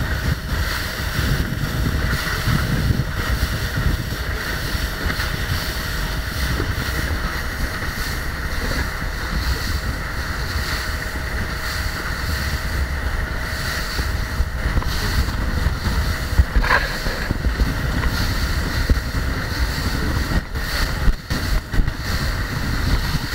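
Grady-White powerboat under way: wind rushing over the microphone and water rushing past the hull, with a steady engine drone underneath. The wind buffets the microphone in a few sharp jolts near the end.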